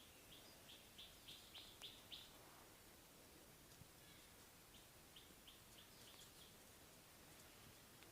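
A bird chirping faintly: two runs of short high chirps, about three a second, the first run growing louder, over a near-silent hiss.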